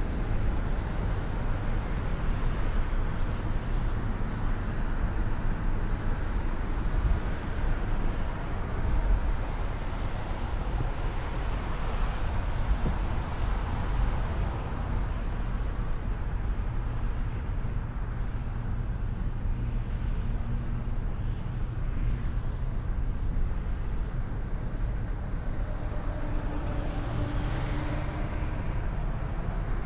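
Steady road noise of a car driving on a snowy road, with tyre hiss and a low engine drone, heard from inside the car.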